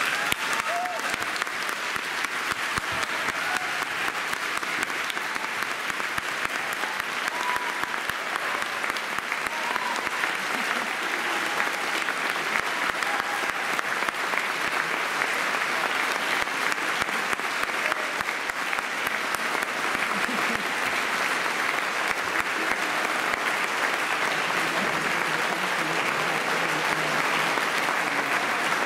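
Concert audience applauding steadily after the music has ended.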